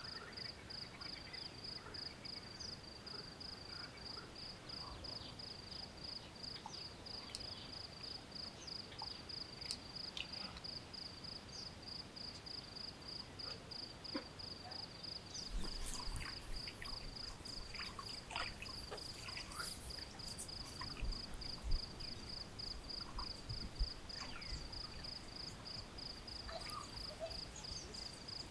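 Cricket chirping steadily in a high-pitched even pulse, about three chirps a second. From about halfway through, scattered light clicks and a few low knocks join in.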